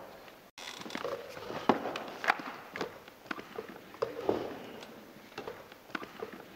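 Irregular knocks and clicks, a few a second, from movement and handling, with a brief dropout about half a second in.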